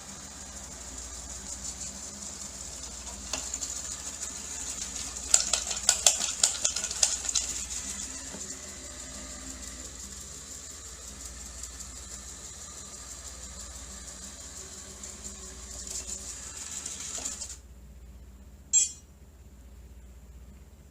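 Robot vacuum running with a steady high-pitched motor whine and hiss, with a burst of rattling clicks about five seconds in. It cuts off suddenly, followed by a single sharp click.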